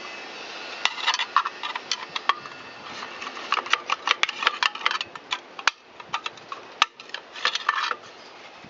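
Irregular metallic clicks and clinks of small metal parts being handled, as the loosened muffler screws and muffler come off a Shindaiwa T272X string trimmer engine. Taps come singly and in quick clusters, some with a brief ring.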